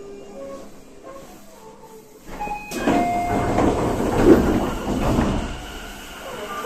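Passenger doors of a Tobu 30000 series train sliding open with a sudden rush of air and rattle about three seconds in, loud for a couple of seconds before settling. Before that the car is fairly quiet, with a few faint short tones.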